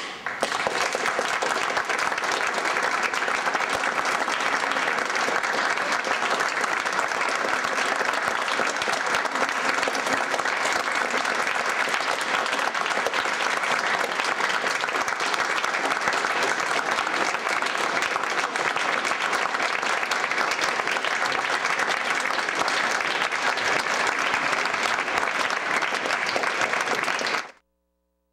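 Concert audience applauding steadily for nearly half a minute, cut off abruptly near the end.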